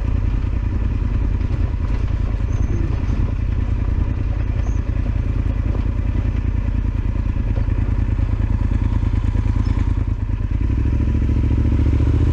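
Yamaha Super Ténéré XT1200Z's parallel-twin engine running at low revs as the bike is ridden slowly off-road through mud. It picks up slightly, a little more throttle, about ten and a half seconds in.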